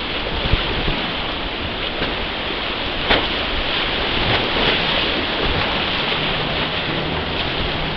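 Whitewater rapids rushing steadily around a raft, with a few sharp hits breaking through the roar of the water, the loudest about three seconds in.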